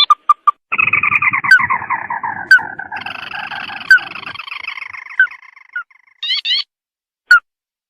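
Recorded bird calls played as a lure: a long, dense chattering trill starting about a second in and slowly falling in pitch over about five seconds, with a few sharp single notes over it, then a brief burst of short chirps and one last note near the end.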